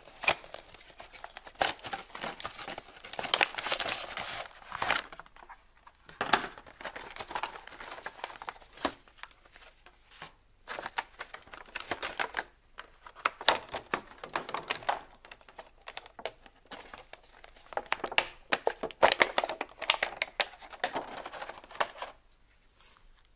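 The packaging of a Sennheiser MKE 400 shotgun microphone being crinkled and torn open by hand, in irregular spells of crackling with sharp clicks, stopping about a second before the end.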